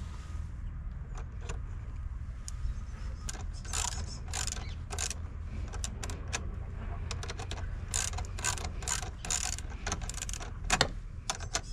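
Socket ratchet wrench clicking in short runs as it tightens the terminal clamp nut on a car battery, the clicks starting a few seconds in.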